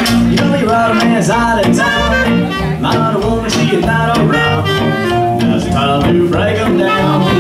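Live small band playing an up-tempo jazzy number: clarinet carrying the melody over acoustic guitar, upright bass and keyboard, with fiddle joining in.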